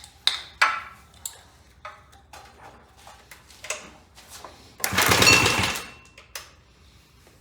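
Clinton C700 small engine pull-started about five seconds in, firing in a rapid burst for about a second before cutting out. Before it come light clicks and knocks of handling the engine.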